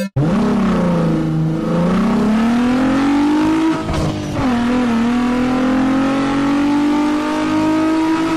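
Car engine accelerating. Its pitch dips at first, then climbs; about four seconds in it drops back and climbs again more slowly.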